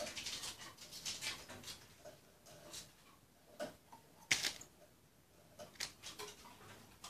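A small finch pecking at red berries in a glass bowl while perched on its rim: irregular light clicks and taps of bill and feet on the berries and glass, with one sharper tap a little over four seconds in.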